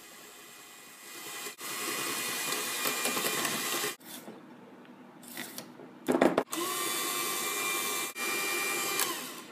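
KitchenAid electric hand mixer beating cream cheese and sugar in a glass bowl, running steadily for a few seconds, then stopping. After a quieter stretch of bowl scraping and a brief clatter, the mixer runs again and stops near the end.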